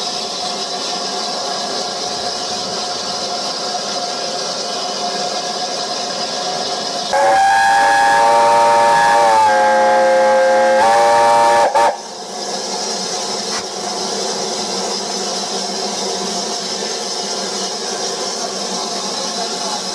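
Steady steam hiss from a standing BR Standard Class 5 steam locomotive, No. 73082. About seven seconds in, a steam whistle sounds loudly for about five seconds. It sags in pitch midway and breaks briefly just before it stops.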